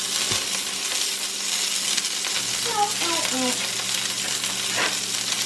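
A steady hiss with a few light clicks, a low hum coming in about halfway, and a brief faint voice.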